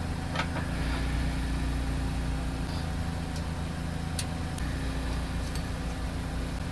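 A steady low engine-like hum runs throughout, with a few light clicks, about half a second in and around three and four seconds in.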